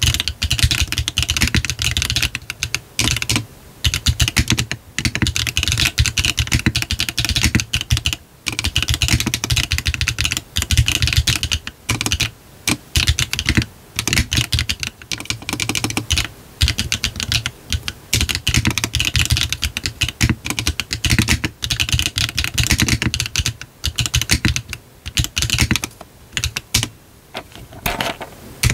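A GDK DK1-TKL mechanical keyboard with a brass bottom, fitted with HMX 幻紫 switches on a 1.6 mm PCB with no foam and a hard beans gasket. It is being typed on steadily in a fast run of keystrokes, with brief pauses every few seconds.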